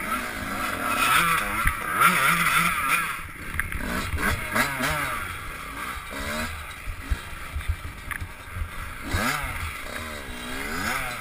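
Enduro motorcycle engine heard from the bike itself, its revs repeatedly rising and falling as the rider works the throttle over rough, rutted ground, with short knocks and rattles from the bike over the bumps.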